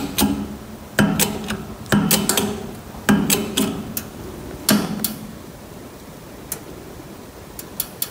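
Hydraulic bottle jack pumped by hand to press a differential pinion gear up into its bearing: a click or knock with a short metallic ring about once a second, then only a few faint clicks after about five seconds.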